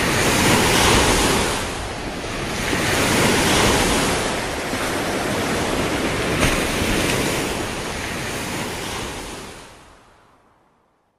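Ocean surf washing onto a sandy beach and breaking on rocks, rising and falling in swells, then fading out to silence near the end.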